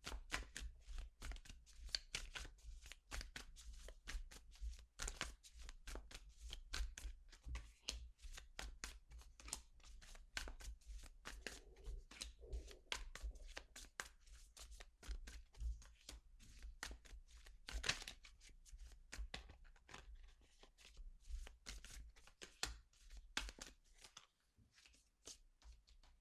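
A deck of tarot cards being shuffled by hand: a long, irregular run of quick, soft clicks of cards against each other, several a second.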